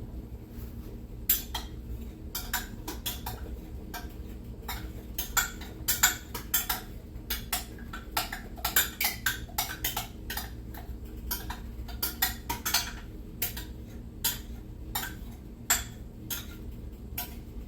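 Utensil scraping and tapping against a measuring cup and pot to work thick, sticky molasses and cane syrup out into the sauce: irregular clinks and scrapes, a few a second, some sharper than others.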